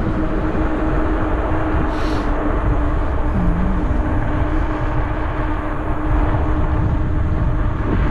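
Wind rumbling on the microphone of a bicycle coasting fast downhill, with a steady hum over it.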